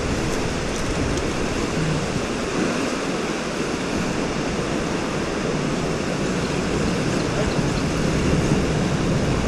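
Steady rush of fast river water churning through whitewater rapids.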